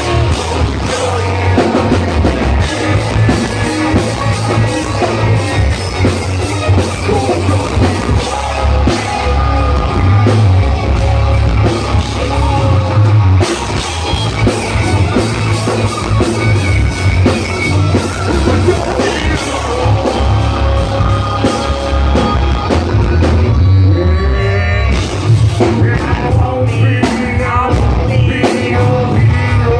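Live rock band playing loud: a singer over drums and distorted electric guitars, heard from the crowd with heavy, boomy bass.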